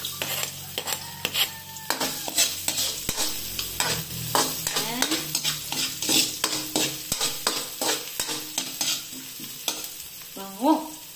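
A metal ladle stirring and scraping around a metal wok in repeated clinking strokes while garlic and ginger sizzle in hot oil.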